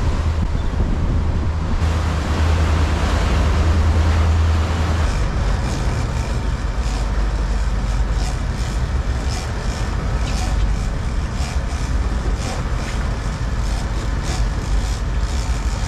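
A sportfishing boat's engine running under way with water rushing past the hull. Over the second half, irregular sharp ticks and clicks sound above the engine hum.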